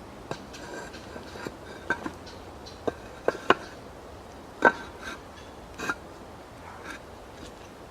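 Irregular sharp knocks and clicks, about a dozen, some with a short ring; the loudest come about three and a half and nearly five seconds in.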